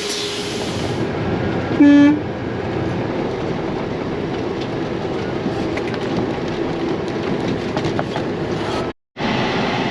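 A farm vehicle's engine and drive noise runs steadily. A short horn toot sounds about two seconds in. The sound drops out completely for a moment near the end.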